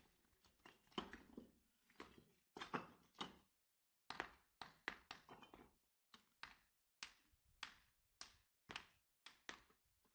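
A series of sharp knocks or thuds, about two a second, each fading quickly, as from building work.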